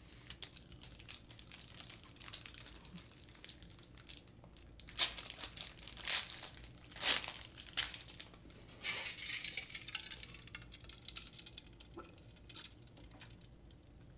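Plastic packaging crinkling and tearing as it is opened by hand: irregular rustles and crackles, with a few louder crackles about five to seven seconds in.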